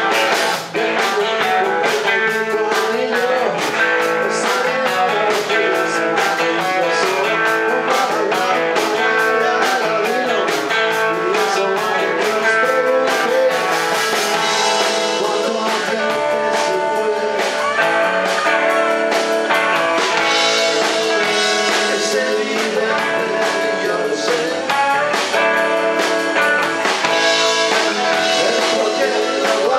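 Live blues-rock band playing: electric guitars over bass guitar and drums, with a man singing. The arrangement changes about halfway through.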